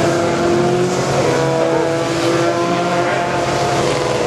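Several 1600 cc touring race cars running on the circuit, their engines sounding together at different pitches that shift slowly.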